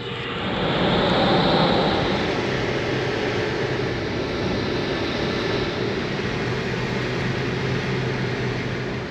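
Steady rumble and hiss of a moving vehicle, with a faint low engine hum, swelling over the first second and then holding level.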